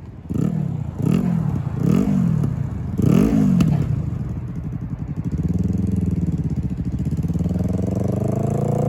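Yamaha R3 parallel-twin motorcycle engine revved in four quick throttle blips, each pitch jumping up and dropping back. It then runs more steadily and climbs in pitch near the end as the bike accelerates.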